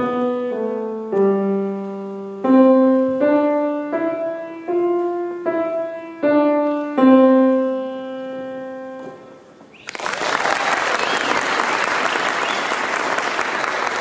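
Grand piano playing the last bars of a simple beginner's piece, two notes at a time in slow, separate strokes. The final chord is held and dies away about nine seconds in. Audience applause breaks out about ten seconds in.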